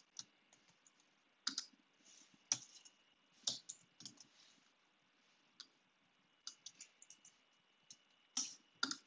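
Sparse, quiet clicks of a computer keyboard and mouse, one or a few at a time with pauses of a second or so between.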